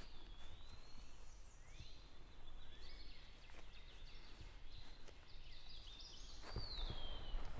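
Songbirds singing in spring woodland: thin whistled phrases that glide up and down, including a falling whistle near the end. Rustling of clothing and gear near the end.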